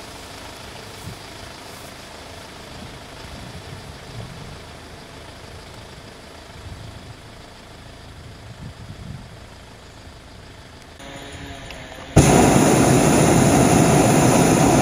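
Faint outdoor background, then about twelve seconds in a hot-air balloon's propane burner fires: a sudden, loud, steady roar lasting about three seconds.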